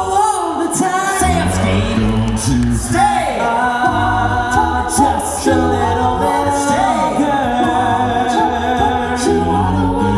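All-male a cappella group singing in close harmony through microphones, with a low bass line under the chords and a steady beat of sharp percussive hits made by voice.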